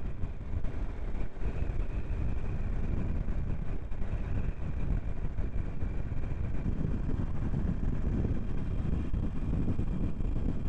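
Harley-Davidson Iron 883's air-cooled 883 cc V-twin running steadily at cruising speed on the road, mixed with wind rushing over the microphone.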